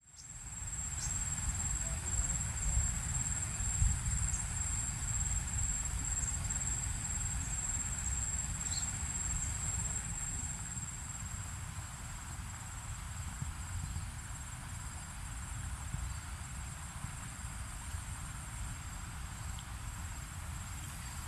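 Insects chirring in one steady high-pitched drone, over a low rumble.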